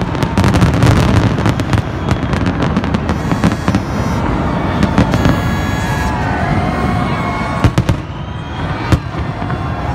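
Rooftop fireworks display: a rapid, dense stream of pops and crackles for the first few seconds, thinning out, with a couple of sharp single bangs near the end.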